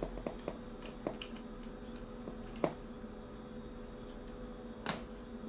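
Scattered light clicks and taps of plastic drone parts being handled, over a low steady hum.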